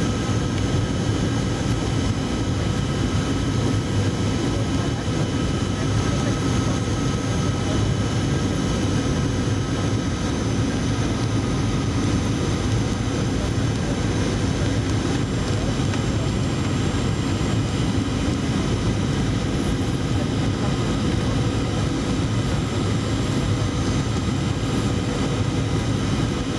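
Steady cabin noise of a Boeing 737-800 on approach: the low hum of its CFM56-7B turbofan engines and rushing air, with a few thin steady tones on top.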